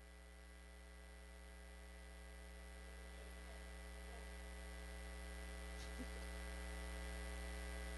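Faint steady mains hum, an electrical buzz from the sound system, slowly growing louder, with one faint tick about six seconds in.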